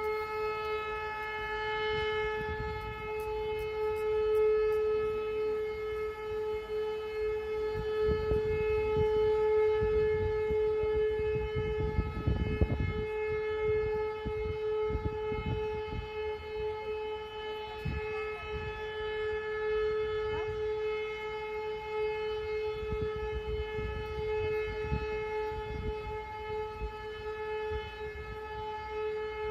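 Austrian civil-defence siren sounding the 'Warnung' signal: a single steady tone held without rise or fall, the three-minute continuous tone that warns the public of approaching danger. Under it runs an irregular low rumble, strongest about twelve seconds in.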